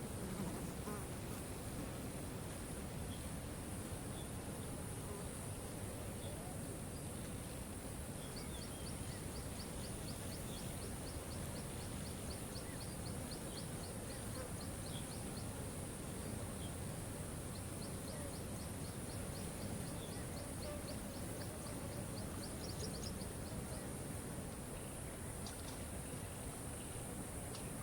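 Steady rush of a waterfall, with a bird repeating rapid high ticking notes in two long runs and a few short chirps between them.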